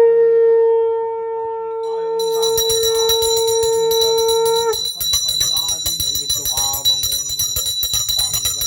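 A conch shell (shankha) is blown in one long steady note lasting about four and a half seconds, which dips slightly in pitch as it stops. A puja hand bell starts ringing rapidly and continuously about two seconds in and carries on to the end, with voices under it in the second half.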